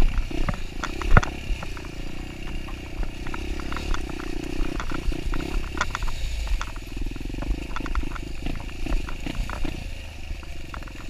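Kawasaki dirt bike engine running steadily at low revs, with many light clicks and rattles over it.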